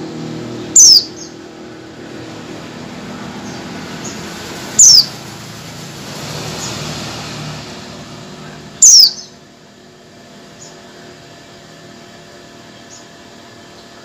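Female white-eye (pleci) giving three short, loud calls about four seconds apart, each sweeping down in pitch: a female's call to males. A few faint chirps follow, and a low rumble runs underneath until about nine seconds in.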